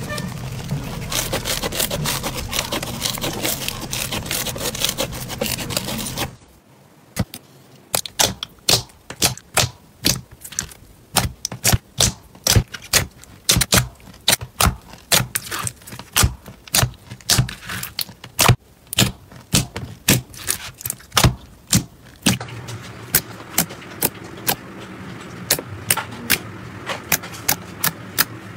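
Hands squishing slime. Foam-bead slime crackles densely for about six seconds. After a sudden change, clear slime is pressed, giving many sharp, irregular wet clicks and pops a few times a second. Near the end a denser crackle with clicks comes back as a glossy green slime is poked.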